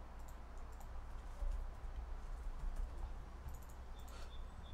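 Faint, scattered key clicks of typing on a laptop keyboard, with mouse clicks.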